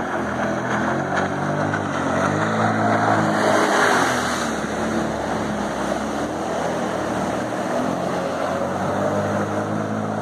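Jet ski engine running at speed over open water. Its pitch climbs and falls back, and the sound swells, about three to four seconds in, then holds steady.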